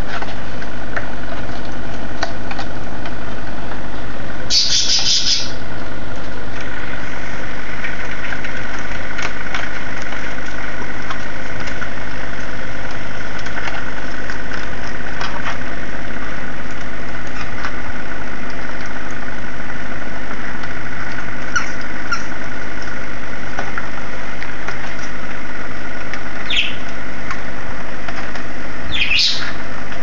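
Humidifier running with a loud, steady hum. A cockatiel gives a few brief high chirps over it, about five seconds in and twice near the end.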